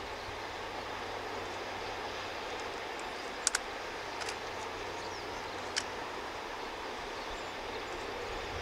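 Distant DD51 diesel locomotive hauling a train: a faint steady rumble under open-air noise. A few sharp clicks come through it, two close together about three and a half seconds in.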